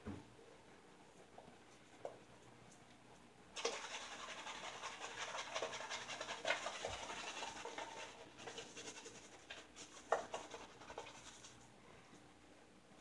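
Merkur 34C double-edge safety razor with a Gillette Silver Blue blade scraping through lathered stubble in a run of short rasping strokes, starting about three and a half seconds in and stopping shortly before the end, with a couple of sharper clicks.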